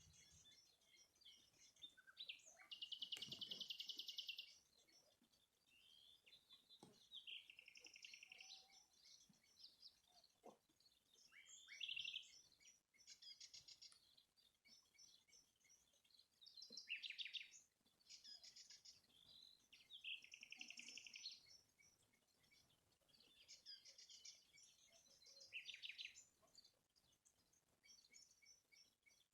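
A songbird singing faintly, repeating short, high, trilled phrases every three to four seconds.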